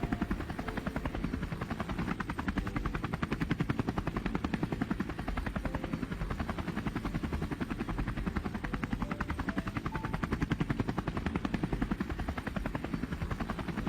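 Helicopter in flight, heard from aboard: the rotor and engine running steadily, with a fast, even chop from the rotor blades.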